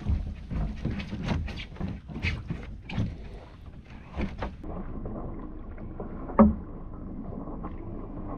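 Water slapping and splashing against the hull of a sea kayak, with irregular knocks, turning to a duller wash about halfway through with one loud thump near six and a half seconds in.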